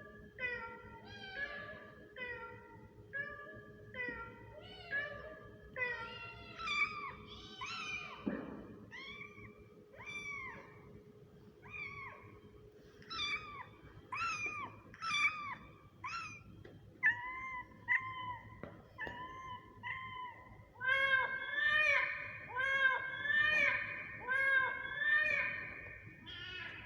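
Kittens meowing over and over, short high arching mews about one or two a second, growing louder and overlapping near the end.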